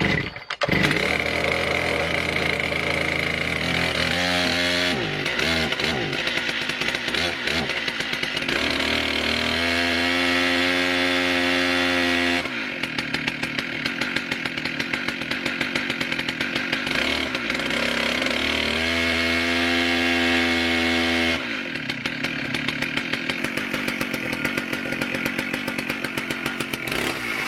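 Holzfforma 122cc two-stroke chainsaw catching and starting up within the first second, then idling with two full-throttle revs of about three seconds each, one in the middle and one later, each dropping straight back to idle.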